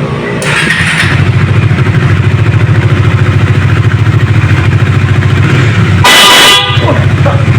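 A newly installed dual horn set sounds one short honk, about half a second long, about six seconds in. Under it, a vehicle engine runs with a steady, fast low throb.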